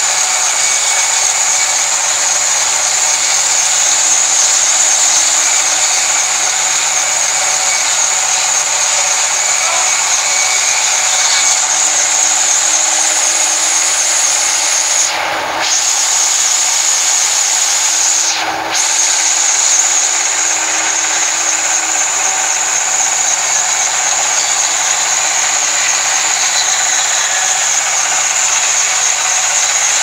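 Sawmill band saw running and ripping lengthwise through a log: a loud, steady whine with a bright high hiss. It drops out briefly twice around the middle.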